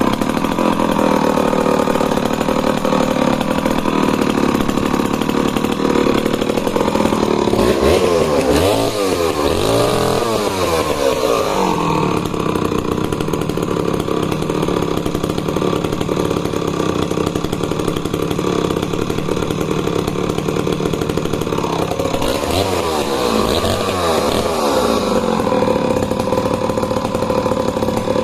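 Danarm DDA110 110 cc vintage two-stroke chainsaw running flat out under load with the bar buried in the cut, holding its speed. Its note wavers twice, about a third of the way in and again near the end.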